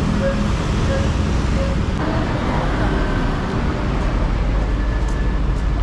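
Steady road traffic noise of a busy city street, a continuous hum of passing cars and buses.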